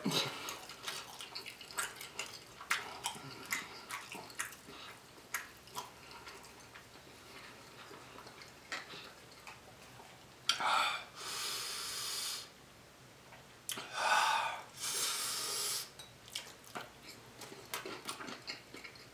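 A person eating quietly, with small clicks of chewing and a plastic fork, then two long hissing breaths through the mouth about four seconds apart, each lasting around two seconds: the breathing of someone whose mouth is burning from very spicy sauce.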